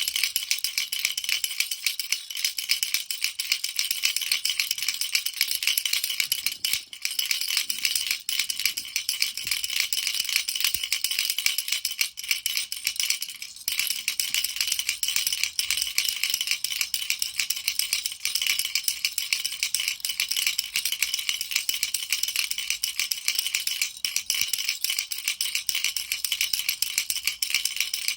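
Baby rattle shaken continuously in a fast, even rattle of small beads, with brief pauses about seven and thirteen seconds in.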